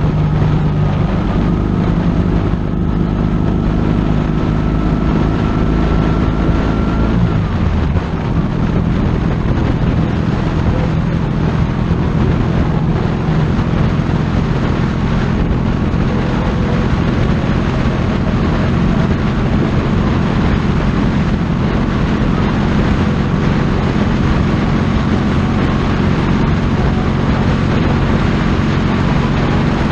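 Motorcycle engine running at steady cruising speed, with wind rushing over the mount. The engine note dips and changes about seven seconds in, then holds steady again.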